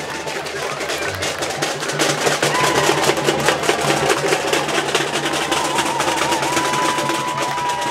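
Street percussion band drumming a fast, dense rhythm on drums and snare. A long held high note comes in over the drumming in the second half.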